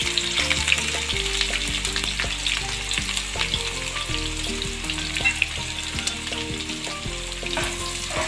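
Sliced onions deep-frying in hot oil in a wok: a steady crackling sizzle dotted with small pops.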